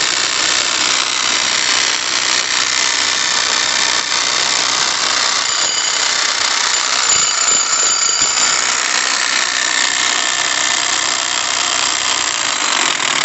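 Makita 11 kg electric demolition hammer running continuously, a loud steady mechanical noise with faint high whining tones. This is the strange noise it has been making after heavy use; its cause is not yet known.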